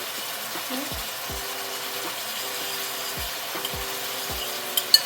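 A spatula scraping and stirring sweet and sour pork ribs around a wok, the food sizzling steadily, with two sharp clinks of the spatula on the pan near the end.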